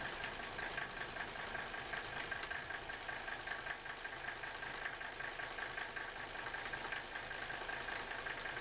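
Mercedes-Benz W123 300D's five-cylinder turbodiesel engine idling steadily, with an even, rapid diesel clatter.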